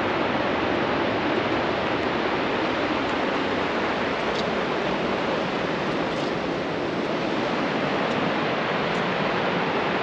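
Steady rushing noise of a waterfall and river rapids.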